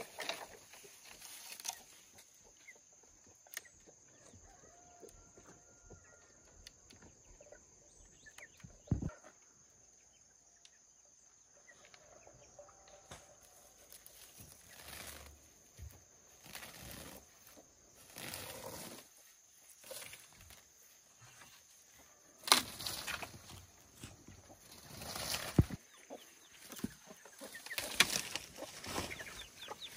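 Chickens clucking and moving about, with scattered rustles and knocks and several louder flurries in the second half.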